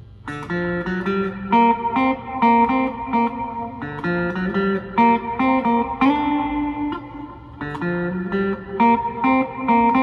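Custom-built solid-body electric guitar with two hand-wound P90 pickups, played clean: picked chords and single notes in a steady rhythm, starting abruptly just after a quiet moment.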